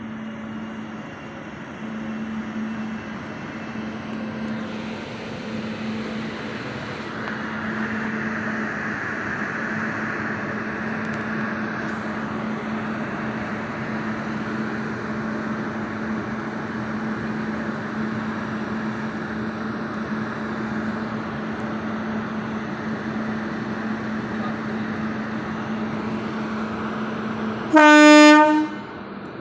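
Train locomotive running with a steady hum, then one loud horn blast lasting about a second near the end.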